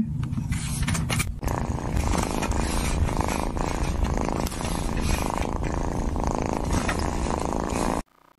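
A cat purring steadily and loudly as it rubs its cheek against a bristle self-grooming brush; the purring cuts off suddenly near the end.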